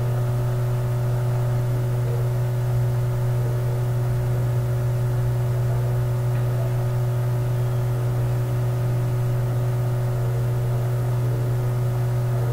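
A steady low electrical hum that runs unchanged throughout, with a few fainter steady tones above it.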